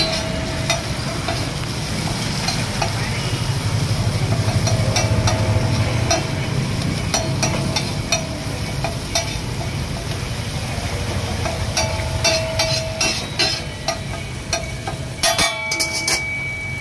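A metal spatula scraping, chopping and tapping masala on a large flat tawa griddle, giving sharp metallic clacks at irregular intervals, some ringing briefly, while the masala sizzles in oil. The clacks come thickest in the second half.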